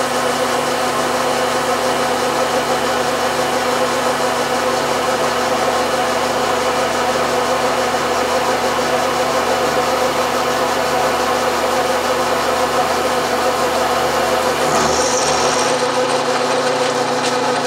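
Vertical milling machine cutting a 3/8-inch slot in a steel block with a brand-new Niagara end mill. The spindle's steady hum runs under an even cutting noise as the chips fly off.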